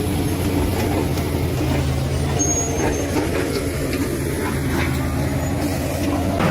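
Bulldozer's diesel engine running steadily under load, with a few light clanks.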